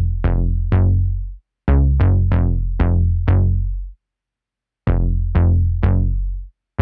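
Background music: an electronic drum-machine beat with deep bass notes that hit sharply and fade, played in short phrases of three to five notes, each cut off by a sudden brief silence.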